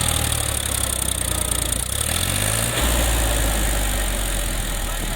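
Heavy diesel engine running steadily, its note shifting lower about three seconds in.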